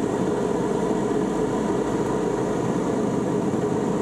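Steady in-flight drone of a Phoenix Air electric motorglider, even and unbroken, with a faint steady whine above it.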